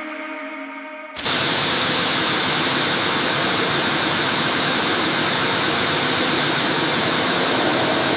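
High-pressure water jet spraying: a loud, steady hiss that starts abruptly about a second in.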